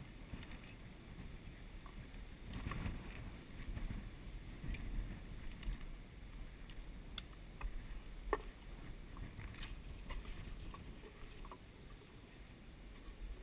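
Faint wind buffeting the microphone, with scattered light knocks and scrapes and one sharper knock a little past halfway.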